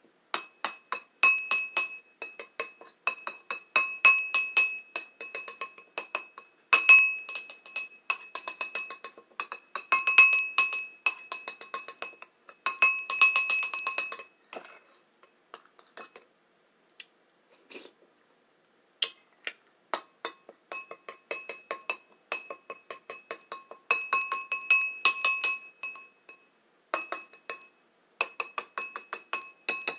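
A bowl tapped rapidly in long runs, each tap ringing at the same few clear pitches like a struck glass, with a pause of a few seconds about halfway through.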